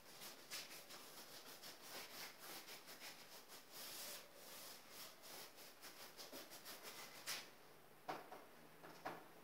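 Faint scratchy strokes of a flat paintbrush scrubbing paint onto a stretched canvas, several strokes a second, with a few sharper taps near the end.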